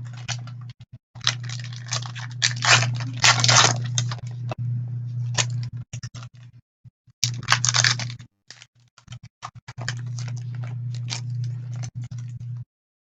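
Plastic and paper packaging of trading cards crinkling and tearing in irregular bursts as it is opened by hand. A steady low electrical hum runs underneath and cuts in and out.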